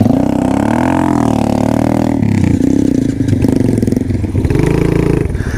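Small off-road motorcycle engine revving up and down as it is ridden over rough trail, its pitch rising and falling with the throttle; the revs drop sharply about two seconds in, then pick up again.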